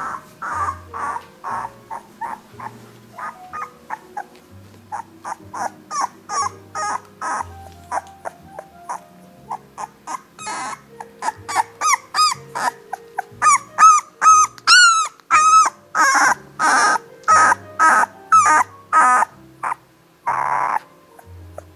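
17-day-old Nova Scotia duck tolling retriever puppies whimpering and squeaking in a long run of short, high calls, some sliding up or down in pitch. The calls grow louder and come faster about halfway through, over background music.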